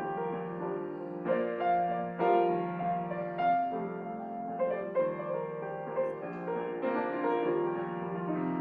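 Piano playing a slow, gentle piece, with new notes and chords struck about once a second over held lower notes.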